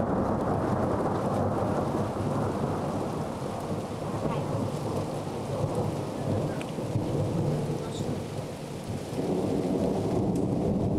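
Thunderstorm: heavy rain falling, with long low rolls of thunder that ease about eight seconds in and swell again shortly after.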